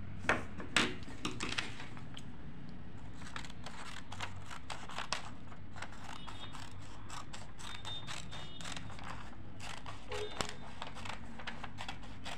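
Scissors snipping through a paper sewing pattern, a run of short sharp cuts with the paper rustling as it is handled; two louder clicks come in the first second.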